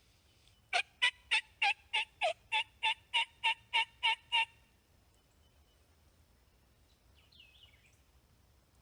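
A run of about thirteen turkey yelps, evenly spaced at roughly three a second and lasting about three and a half seconds. A faint short bird chirp follows later.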